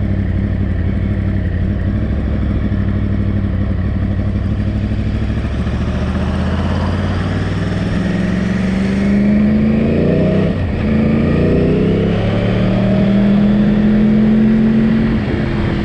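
Yamaha R1 motorcycle's inline-four engine running under way, steady at first, then rising in pitch as it pulls, with a brief break and a second rise before easing off near the end. The engine is on break-in and is being revved gently.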